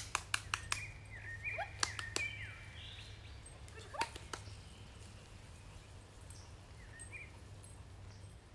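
Short chirping bird calls over a steady low rumble. A quick run of sharp clicks and snaps comes in the first couple of seconds, with two more about four seconds in.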